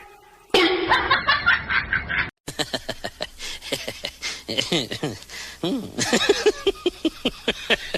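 A person laughing: a rapid run of short giggling notes, several a second, each falling in pitch, starting after a cut about two seconds in.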